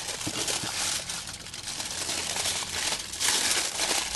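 Aluminium foil crinkling as it is folded and pressed into a packet around chopped vegetables, louder for a moment about three seconds in.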